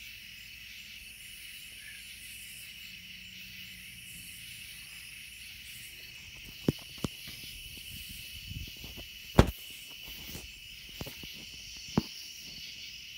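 Crickets chirping steadily. Several sharp clicks and knocks from handling cut through it from about halfway in, the loudest a little past two-thirds of the way.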